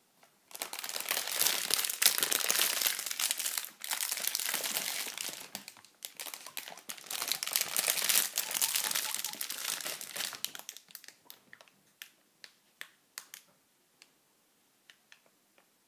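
Plastic being rustled and crinkled in three long bouts over the first ten seconds or so, then dropping to scattered single crackles.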